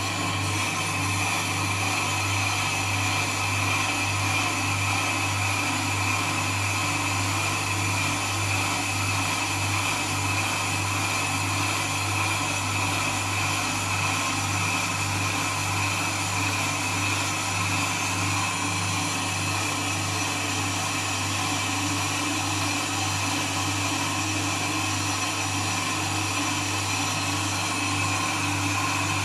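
FDT6000 brake disc lathe running steadily while its cutting tool skims the face of a spinning brake disc: an even motor hum with a high whine over it.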